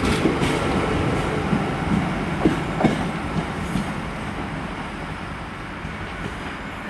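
Great Western Railway Class 800 train running past close by, its wheels rumbling and clacking over the rail joints. The sound fades steadily as it draws away.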